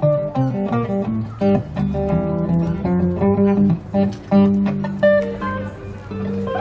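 Acoustic guitar playing a melody of quickly picked single notes.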